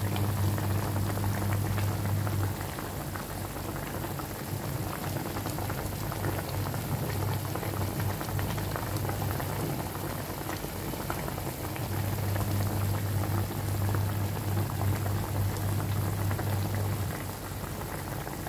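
A pot of fish and vegetable soup boiling hard, bubbling and popping throughout. A low steady hum sits under it for the first couple of seconds and again for several seconds past the middle.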